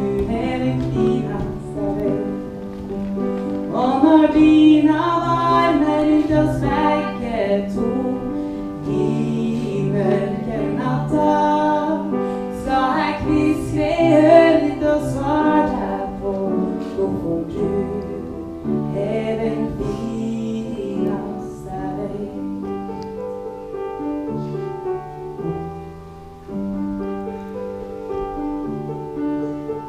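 A woman singing a Norwegian love song into a microphone over sustained keyboard accompaniment. Her voice drops out about three-quarters of the way through, and the accompaniment plays on alone.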